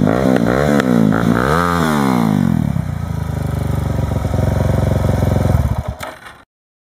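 Suzuki DR-Z400SM supermoto's single-cylinder four-stroke engine through a custom twin-pipe exhaust. It is revved up and down in several quick blips, then settles to a steady idle that fades out about six seconds in.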